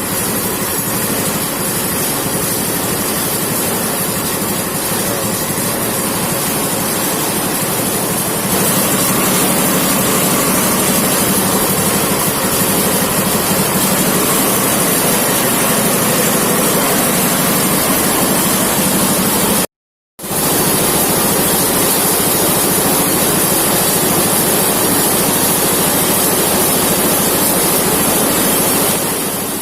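Homemade rice thresher driven by a diesel engine, running smoothly on its test run: a loud, steady, noisy whir with an engine drone underneath. It gets louder about a third of the way through and cuts out for a moment about two-thirds of the way in.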